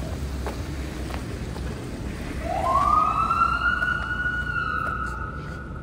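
An emergency vehicle siren starts about two seconds in, with a wail that climbs quickly and then holds a high steady tone. Under it is a low rumble of street traffic.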